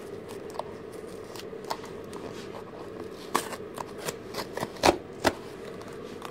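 Cardboard Priority Mail box being torn open by hand, its taped seam ripping and the paper crackling in short rips. The rips come thicker and louder from about three seconds in, the sharpest two a little before the end.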